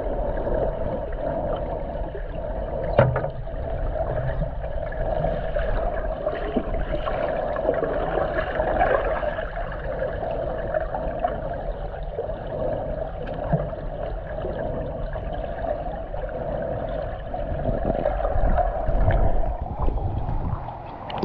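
Muffled underwater sound of a swimming pool heard through a submerged camera: a steady hum over low water rumble and bubbling, with a sharp knock about three seconds in. Near the end it grows louder and churns as the camera comes up through the surface.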